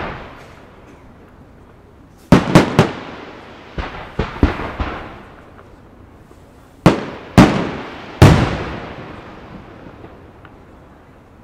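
Aerial firework shells bursting overhead. Three loud bangs come in quick succession about two seconds in, then several smaller pops, and three more loud bangs around seven to eight seconds, each echoing away.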